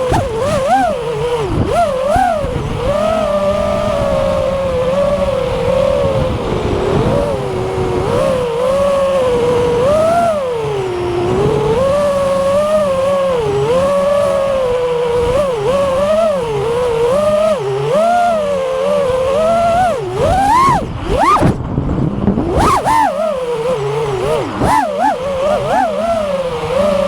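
FPV quadcopter's brushless motors and propellers whining in flight, the pitch swinging up and down constantly with throttle. About three quarters of the way through it rises sharply, briefly drops away, then picks up again.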